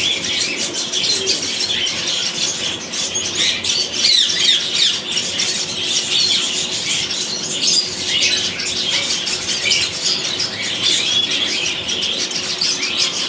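A group of caged owl finches (double-barred finches) chirping continuously: many short, high calls overlapping in a dense chatter.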